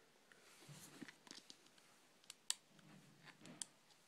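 Faint handling noise: a few short, sharp clicks, the loudest about two and a half seconds in, over soft rustling.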